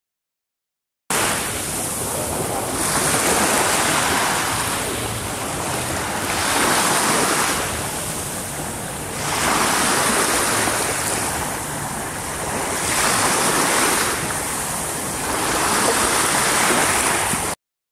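Sea surf washing onto a sandy beach, each wave surging and falling back about every three to four seconds. It starts about a second in and cuts off suddenly near the end.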